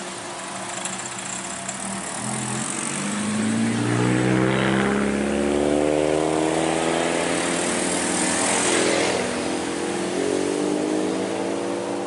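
Road traffic passing close by: car and motorcycle engines pulling past, their notes rising as they accelerate, loudest in the middle, with another vehicle coming up near the end over steady tyre noise.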